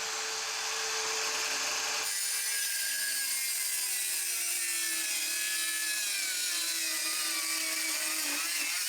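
Mellif 18-volt brushless cordless circular saw running at speed, then biting into thick wood about two seconds in and cutting steadily, its motor tone sagging slowly under the load.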